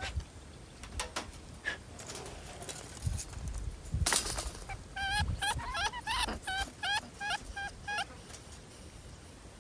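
Wire cage traps clinking and rattling as they are handled, with a louder clatter about four seconds in. A caught rat then squeals in a quick run of about a dozen short squeaks lasting some three seconds.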